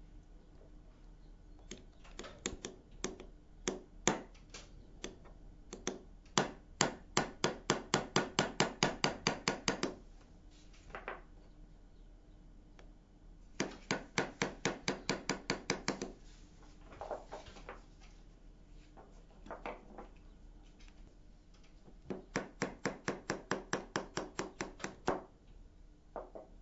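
Small hammer tapping a steel pin punch to drive the hinge pin out of a metal detector's cam-lock mechanism. Three runs of quick, even taps, about four or five a second, with a few single taps between them.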